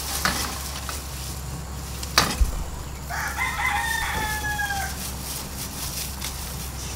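A rooster crowing once, a call of about two seconds, starting about three seconds in. Just before it comes a single sharp knock.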